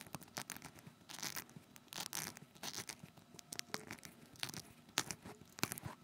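Orange plastic twist-on wire nut being screwed by hand onto stripped wire ends: faint, irregular scratching and clicking.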